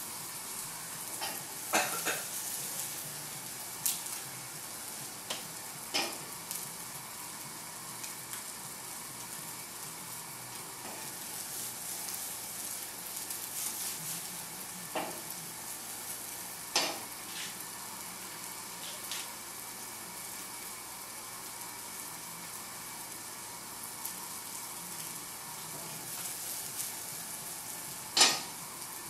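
Eggs frying in tomato sauce in a frying pan, sizzling steadily, with a few sharp knocks of metal cookware, the loudest near the end.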